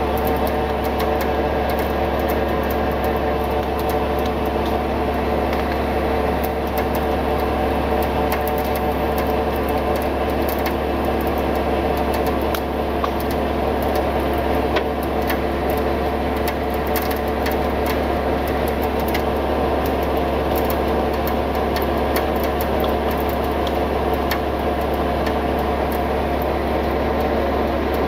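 Tow truck engine running steadily at a constant speed, powering the winch as it pulls a rolled pickup up an embankment.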